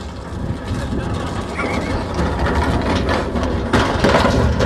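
Large four-wheeled plastic wheelie bin with a rider inside rolling fast downhill, its wheels and body rumbling and rattling, growing louder as it speeds up. Near the end it tips over onto tarmac with a loud clattering crash, amid shouting.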